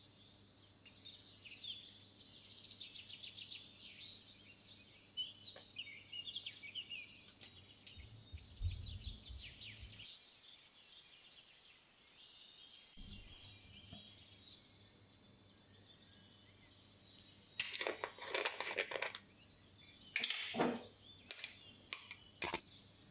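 Faint bird chirping at first. Near the end come a few louder scraping, clinking sounds as a metal measuring spoon scoops baking soda out of a glass jar.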